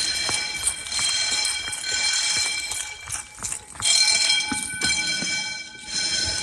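Fire alarm bells ringing continuously during an alarm test, several bells heard at once as a steady metallic ringing, with a few short dips in level.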